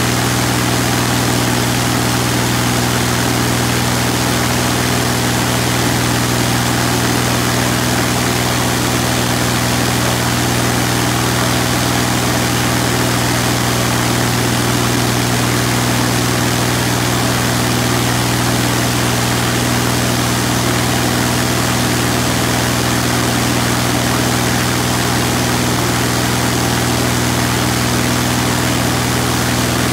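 UL Power UL520iS six-cylinder air-cooled aircraft engine and its propeller running at high power on a static ground run, holding steady at about 2,430 rpm. The drone is loud and unchanging, heard from inside the cockpit.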